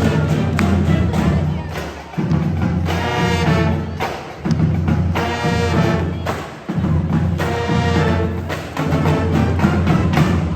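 High school band playing a loud piece with drums. Phrases of held notes are punctuated by drum hits, and the music stops right at the end.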